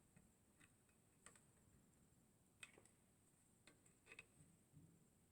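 Near silence with about six faint, scattered clicks of tools and small parts being handled while the second carbon brush is taken off a vacuum cleaner motor.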